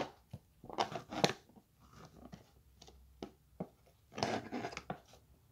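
Sticky homemade slime being stirred and worked with a stick in a clear plastic tub: a run of irregular soft clicks and short wet squelches.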